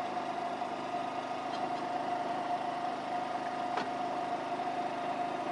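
Steady hum of a fishing boat's engine running at idle, carrying a constant mid-pitched tone, with a faint click just under four seconds in.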